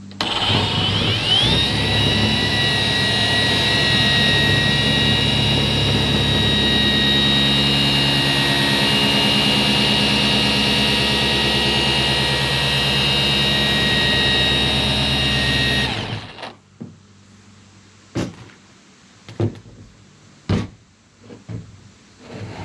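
Cordless Milwaukee dual-action polisher with a heavy cutting pad running on truck paint: its motor whine climbs as it is cranked up to a high speed just after the start, runs steadily while compounding, then cuts off suddenly about sixteen seconds in. A few light knocks follow.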